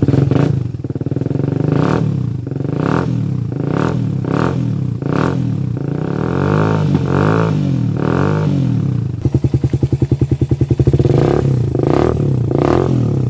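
Suzuki Raider 150 single-cylinder four-stroke engine breathing through a gutted, drilled-out stock muffler, revved in a series of short throttle blips. Longer swelling revs follow, then a stretch of fast pulsing revs near the end.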